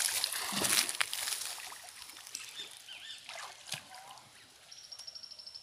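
Water splashing and sloshing, loudest in the first second and then dying away. Faint bird chirps follow, and a short, rapid high trill comes near the end.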